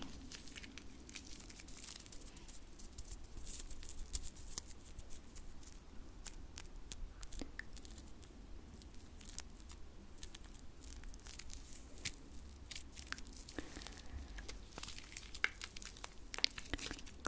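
Hand sounds close to the microphone: palms and fingers rubbing and pressing together, a soft rustle with many fine crackling clicks.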